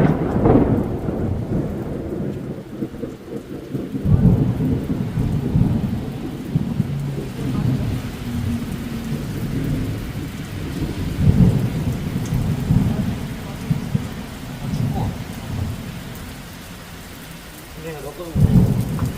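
Rain shower falling steadily under rolling thunder. Deep rumbles swell up about four seconds in, again around eleven seconds, and once more near the end.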